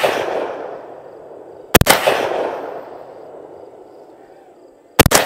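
Two shots from a Benelli M2 semi-automatic shotgun, about three seconds apart, fired at a drone. Each is followed by a long echo that dies away over a second or two, and the echo of a shot fired just before is still fading at the start.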